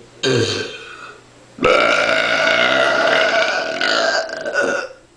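A person burping twice: first a short burp that falls in pitch, then a long, drawn-out burp lasting about three seconds.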